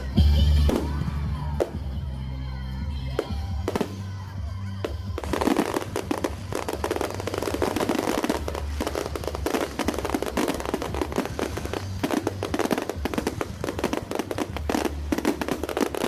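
Fireworks going off over background music with a steady bass: a loud bang just after the start, then from about five seconds in, dense rapid crackling and popping of firework bursts.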